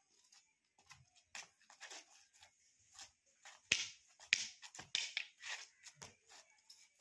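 Silambam bamboo staff swishing through the air in fast spins, with feet stepping and scuffing on a concrete floor: a quick run of short, sharp swishes with a few soft thuds, loudest a little past the middle.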